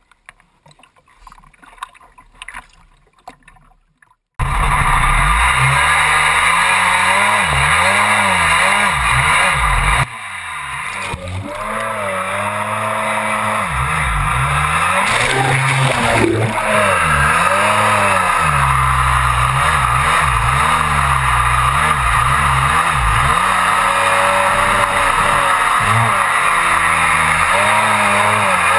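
Kawasaki JS550 stand-up jet ski's two-stroke twin running hard, its pitch rising and falling over and over as the throttle is worked, over the rush and spray of water against the hull. It cuts in suddenly about four seconds in after faint water splashes, and dips briefly about ten seconds in before building back up.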